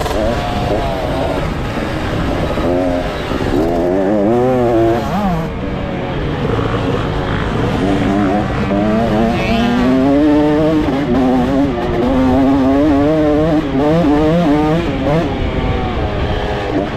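Pit bike engine being ridden hard, its pitch climbing and dropping over and over as the throttle opens and shuts, over heavy wind rumble on the onboard camera.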